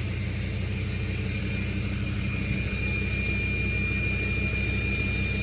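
A large vehicle's engine running at low speed as it is slowly manoeuvred in a tight parking spot: a steady low rumble, with a thin steady high whine that grows clearer about two seconds in.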